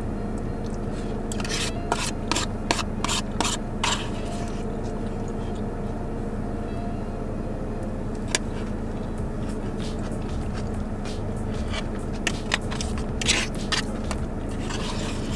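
Eating sounds: a fork clicking and scraping in a plastic takeout bowl of pasta, with chewing, in short clusters about two seconds in and again about twelve seconds in, over a steady low hum.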